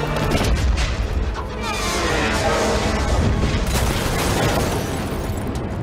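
Sound-effect explosions with a long, dense rumble that eases off near the end, over the orchestral score.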